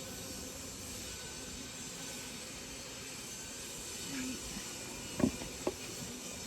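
Steady hum of honeybees around an open hive, with two sharp knocks about half a second apart a little after five seconds in.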